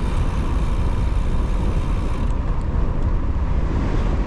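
Wind buffeting the microphone of a camera on a moving bicycle ridden into a headwind: a steady, low rush of wind noise.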